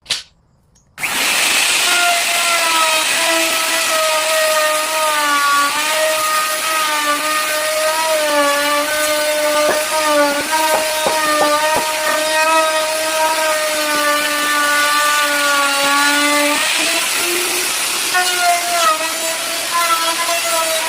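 Electric woodworking power tool cutting wood, its motor whine starting about a second in and wavering in pitch as it works, with a few short knocks partway through. The whine dips out briefly near the end and then comes back.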